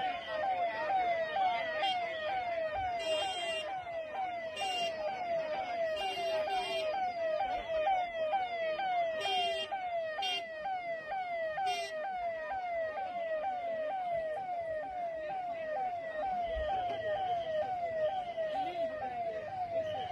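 Emergency-vehicle siren sounding steadily in a fast repeating pattern of falling sweeps, about two a second.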